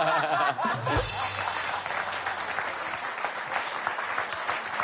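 Studio audience laughing, then breaking into applause about a second in, over background music that starts with a low boom.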